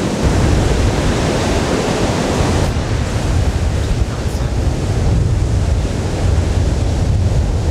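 Large ocean waves breaking and churning into whitewater, with wind buffeting the microphone as a steady low rumble. The high hiss drops away about three seconds in.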